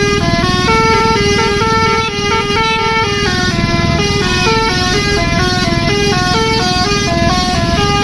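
Bus telolet horn, a multi-trumpet Basuri-type musical air horn, playing a stepping melody of held notes that change pitch every fraction of a second, over a low engine rumble.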